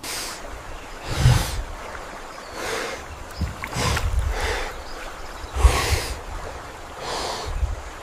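Heavy breathing from a large ape-like creature half-submerged in water, with water sloshing around it. The breaths come in loud surges roughly every second and a half.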